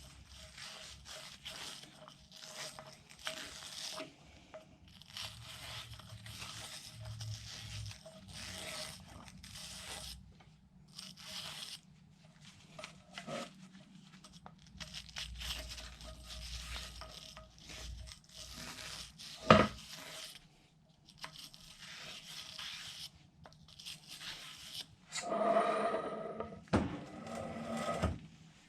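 Rag wiping and scrubbing the drive shaft's U-joint yoke clean, in many short irregular strokes. A single sharp knock comes about two-thirds through, and a louder clatter with some ringing follows near the end.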